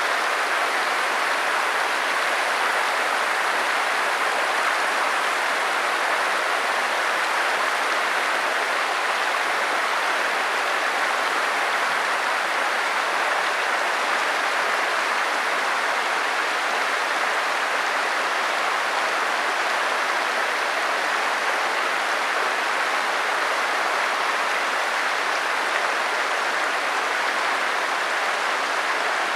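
Flowing stream water rushing steadily, an even hiss of running water.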